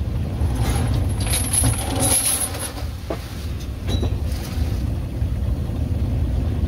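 Fishing boat's engine running steadily with a low rumble, and water churning behind the boat as the trawl net is paid out. A couple of short knocks from the rope and gear come around the middle.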